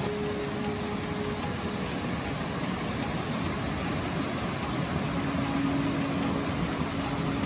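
Rain-swollen mountain stream rushing over rocks and small rapids: a steady rush of water.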